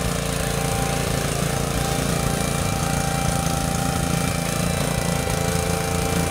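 The Honda GX160 single-cylinder engine of a homemade rotary cultivator running steadily under load as it tills, a fast, even engine beat with a few steady higher tones over it.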